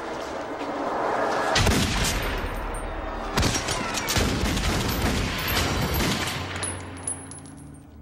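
A rushing noise builds for about a second and a half, then a run of loud, sharp bangs and crashes follows over the next few seconds and dies away near the end.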